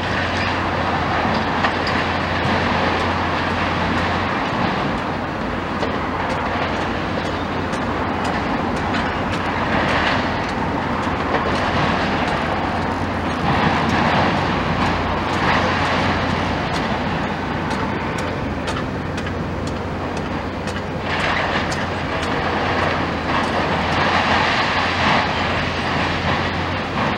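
Komatsu demolition excavator at work: its engine running under load with a continuous grinding and crunching of building material as its attachment tears at the structure. The noise swells louder several times.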